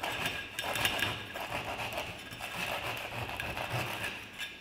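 A knife sawing through a black burger bun, rasping back and forth at about two strokes a second, stopping just before the end.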